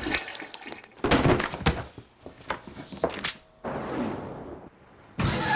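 Staged sound effects of a toilet acting up: a quick run of thunks, cracks and knocks, then a rushing noise. Near the end a steady tone starts.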